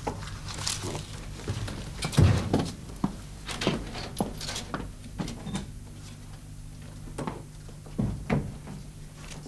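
Scattered footsteps and knocks in a small room, with a loud thump about two seconds in. Near the end come the knocks of a metal filing cabinet drawer being handled. A steady low hum runs underneath.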